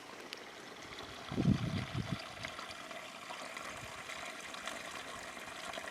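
A small stream running with a steady trickle of water. A few soft low bumps come about a second and a half in.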